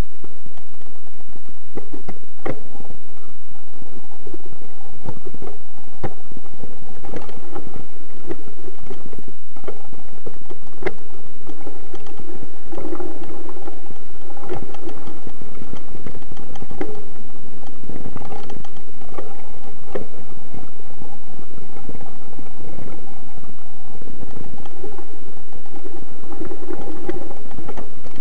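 Mountain bike ridden over a rough, wet trail, heard through a camera mounted on the bike: constant loud rattling and clatter from the bike and mount, with frequent sharp knocks over bumps and roots and the rumble of the knobbly tyres.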